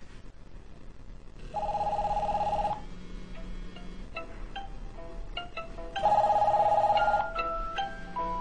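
Mobile phones ringing for incoming calls: a warbling trill ring sounds twice, each just over a second long, while another phone plays a melodic ringtone of short notes.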